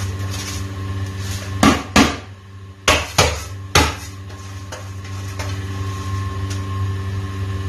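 Aluminium rice strainer knocked against the rim of a large steel cooking pot as washed rice is tipped in, five sharp metallic clangs in about two seconds, over a steady low hum.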